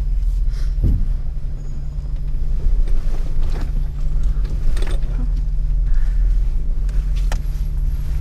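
Jeep engine running steadily at low revs, with a few short knocks and clatters over it.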